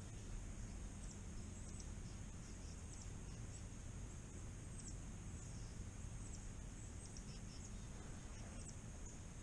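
Faint outdoor woodland ambience in winter: a low steady rumble under a thin, steady high hiss, with short, very high, faint chirps scattered every second or so.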